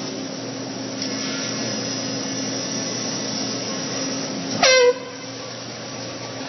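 One short, loud air-horn blast about four and a half seconds in; its pitch drops sharply at the onset and it lasts well under half a second. A steady background hum runs underneath.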